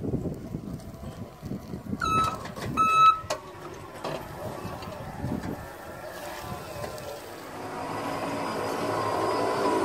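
Two short electronic beeps about two and three seconds in, then the electric drive of Naïo's TED vineyard weeding robot running with a steady whine that grows louder near the end.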